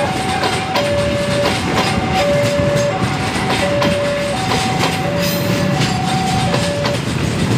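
Passenger train carriages rolling slowly past, wheels clicking over rail joints with a steady rumble. Over it, a two-tone electronic alarm alternates between a lower and a higher tone, about one full cycle every second and a half, and stops about seven seconds in.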